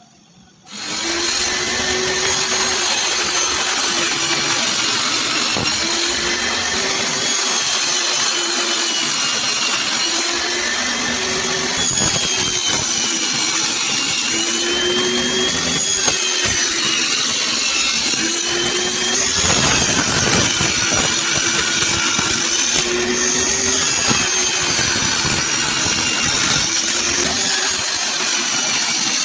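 Table saw starting up and running, ripping thin wooden strips; its pitch rises and falls as the wood is fed through the blade, with a louder rasping cut about twenty seconds in.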